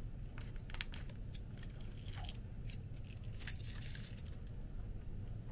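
A bunch of keys on a key ring jangling and clinking as they are handled, in scattered short clinks that are busiest about three and a half seconds in.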